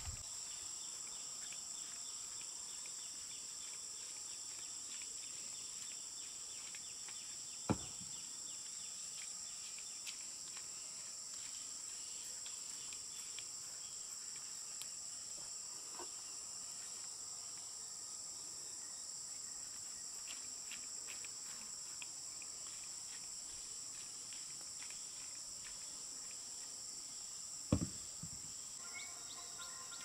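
Steady high-pitched drone of an insect chorus, with two sharp knocks, one about eight seconds in and one near the end.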